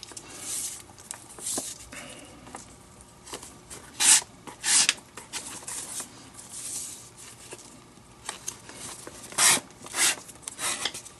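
Leather lace pulled and drawn through the lace holes of a baseball glove's web while it is being relaced: a run of quick rasping zips, the loudest pairs about four seconds in and near the end.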